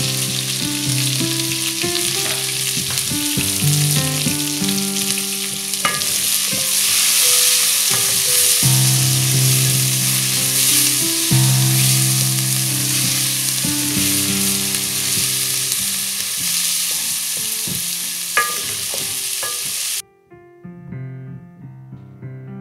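Chopped tomatoes, onion and green pepper sizzling in a hot aluminium pot as they are stirred with a wooden spoon, with a couple of sharp knocks. Soft piano background music plays under it. The sizzling cuts off suddenly near the end, leaving only the music.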